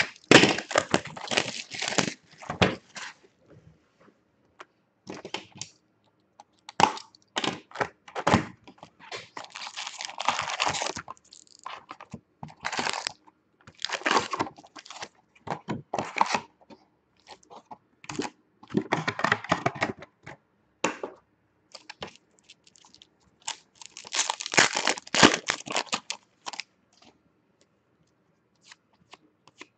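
Plastic shrink wrap being cut and torn off a hockey card box, then the foil card packs being pulled from the box and handled: irregular bursts of crinkling and tearing with short pauses between.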